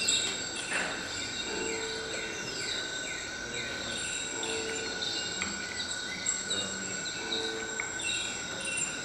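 Recorded bird chirps played through small speakers: many short falling chirps over two steady high tones.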